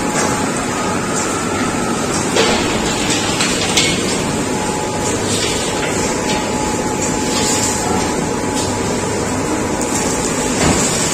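Steady, loud running noise of snack-factory machinery such as a conveyor and extruder line, with a faint steady whine and a few sharp knocks.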